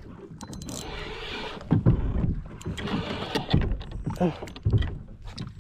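Okuma Ceymar spinning reel being cranked to wind in a hooked fish, with repeated knocks along the way.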